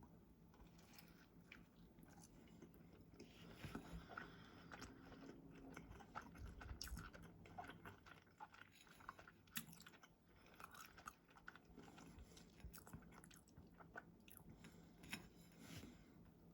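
Quiet, close chewing as a person bites into and eats a microwaved double cheeseburger, with irregular small wet mouth clicks and crunches.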